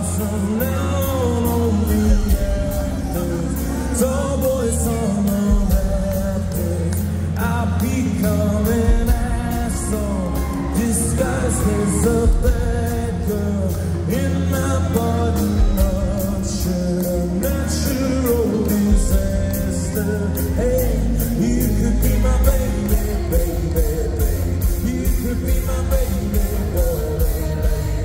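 Live rock band playing through a PA, heard from the crowd: guitars, drums and singers. Near the end a steady drum beat comes to the fore.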